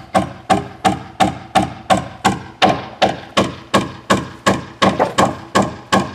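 Steady hammering on the planking of a wooden boat hull under construction: sharp blows about three a second, each ringing briefly through the wood.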